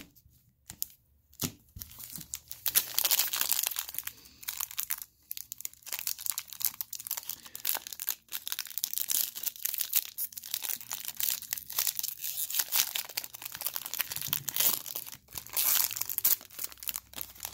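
Foil wrapper of a 2017 Panini Prestige football card pack crinkling and tearing as it is torn open by hand and the cards are pulled out. The dense crackle starts about a second and a half in and carries on to the end.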